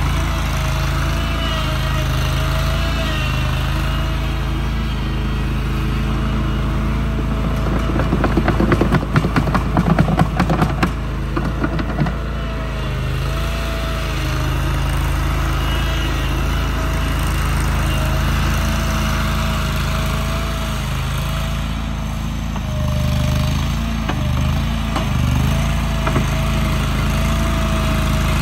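A small engine running steadily, with a stretch of rapid rattling about eight to twelve seconds in.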